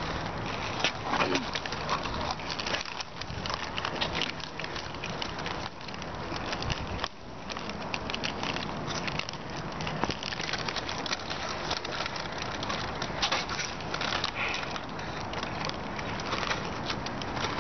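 Crinkling of foil snack bags and crunching of Flamin' Hot Cheetos being eaten: a steady crackly rustle full of small clicks.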